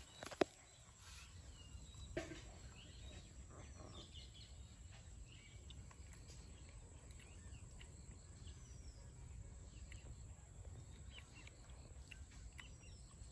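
Quiet outdoor ambience: faint scattered bird chirps over a low rumble. A sharp click comes just after the start and a softer knock at about two seconds.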